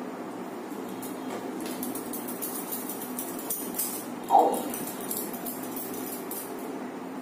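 Hands rolling atta dough balls between the palms, a soft rubbing and patting, over a steady background hum. A brief louder sound falling in pitch stands out about four seconds in.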